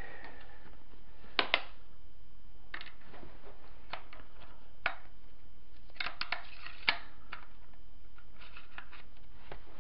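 Irregular sharp clicks and knocks of G&G F2000 airsoft rifle parts being handled and fitted together during reassembly. There is a double click about a second and a half in, and a quick run of clicks around six to seven seconds in.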